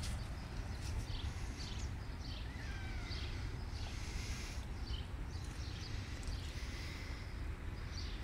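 Heavy, quick breathing of a person who is out of breath, close to the microphone, over a steady low rumble on the microphone.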